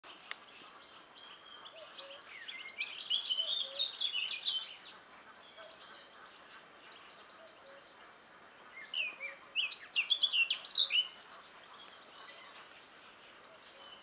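A nightingale singing: two bursts of rapid, varied whistles and trills, one starting about two seconds in and one about nine seconds in. Faint low paired notes repeat in the background between them.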